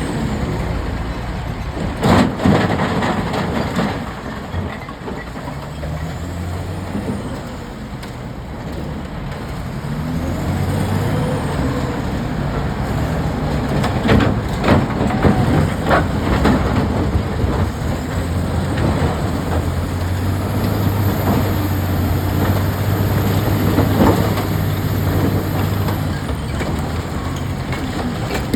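Caterpillar 966F wheel loader's diesel engine revving up and down under load, with loud strikes of rock on steel about two seconds in and again around the middle. A thin high whine rises and falls above the engine and holds steady for several seconds near the end.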